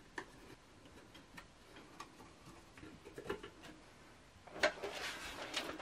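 Faint, scattered ticks and taps of a pencil marking screw holes on the wall through a shelf's metal brackets. Louder handling noise comes near the end as the shelf is moved away from the wall.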